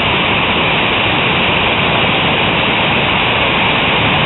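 Hailstorm with heavy rain pelting down: a dense, unbroken hiss with no let-up.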